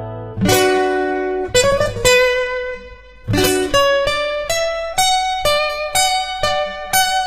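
Guitar picking a single-note melody, one note after another, with a short slide between notes about two seconds in: the intro of a rock cover song.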